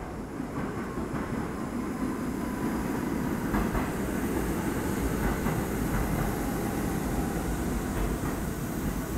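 An R68 subway train runs past on the elevated tracks. Its steady rumble grows louder over the first couple of seconds, and a few clicks of wheels crossing rail joints come through.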